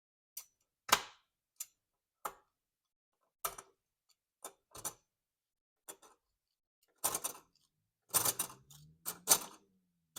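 Irregular sharp clicks and taps of small hard objects being handled, roughly one a second at first, then a denser run of louder knocks from about seven seconds in. A faint low hum comes in about eight seconds in.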